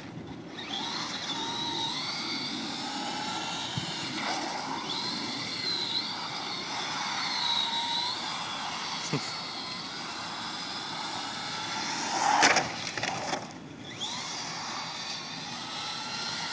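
Radio-controlled toy car running on asphalt, its motor whining up and down in pitch as it speeds up and slows, over the rolling noise of its wheels. A brief louder rush comes about twelve seconds in.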